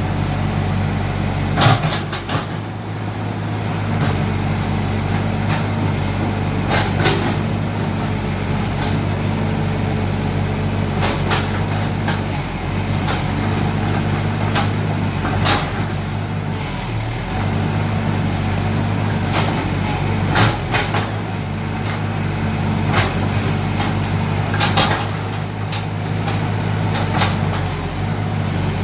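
Mini excavator engine running steadily while digging, with its note dipping briefly now and then. About eight sharp knocks and clanks break through it every few seconds.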